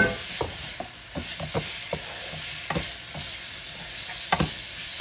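Chicken pieces, just added, sizzling in hot oil in a nonstick frying pan, with a steady hiss. A wooden spoon stirs them, knocking and scraping against the pan at irregular moments.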